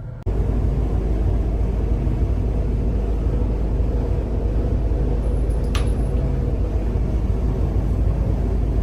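Steady low rumble of a car on the move, heard from inside, starting abruptly just after the start. A single faint click comes about six seconds in.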